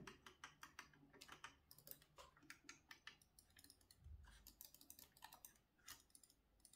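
Logitech G604 gaming mouse buttons clicked over and over, a run of faint, sharp clicks several times a second, with a soft low thump about four seconds in.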